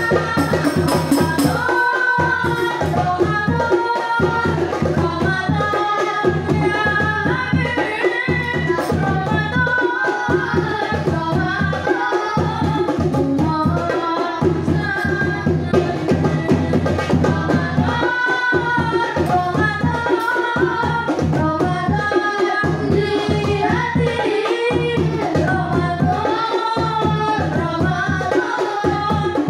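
Boys singing sholawat, an Islamic devotional song, into microphones, accompanied by darbuka hand-drum strokes and jingling percussion in a steady rhythm.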